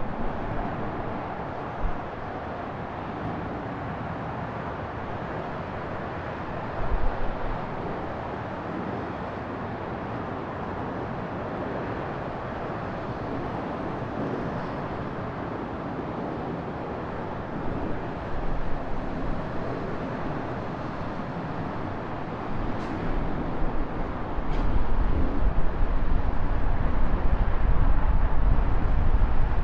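Street traffic noise with wind buffeting the microphone, a steady hiss and rumble. The wind rumble grows heavier about three-quarters of the way through.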